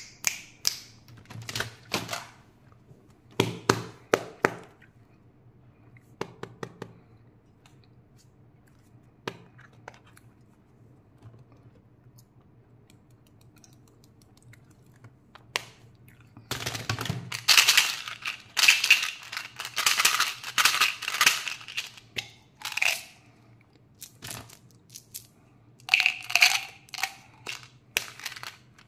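Candy packaging handled and opened by hand: scattered clicks and taps of plastic containers, then, about halfway through, several seconds of loud crinkly tearing and rustling as a seal is peeled off, with a shorter burst near the end.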